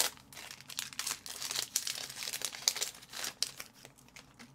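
Foil wrapper of a hockey card pack crinkling and crackling as it is handled and torn open by hand. The crackle dies down about three and a half seconds in.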